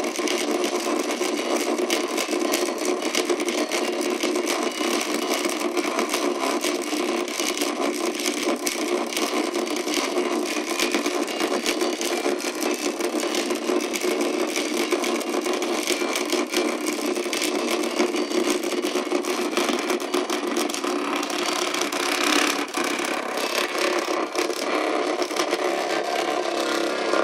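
A small toy buzzing and jumping about, its motor running steadily with a constant rattling clatter.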